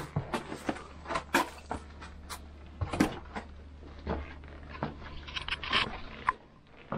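Irregular scuffs, knocks and crunches of someone climbing down over limestone rock and loose grit, with handling noise from a handheld camera.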